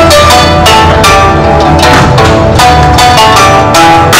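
Music on a plucked Chinese zither (guzheng): quick runs of plucked notes over a low bass.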